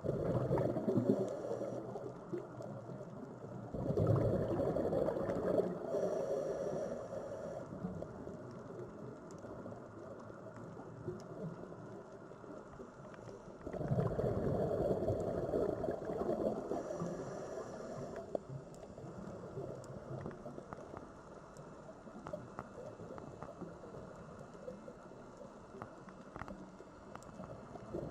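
Sea waves washing onto the shore and draining back. Three big surges come, one at the start, one about 4 seconds in and one about 14 seconds in, each followed by a long, fading wash.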